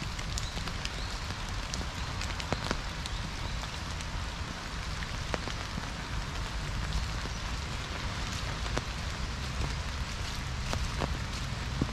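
Light rain falling on trees and fallen leaves: a steady hiss with scattered, irregular drop ticks and a low rumble underneath.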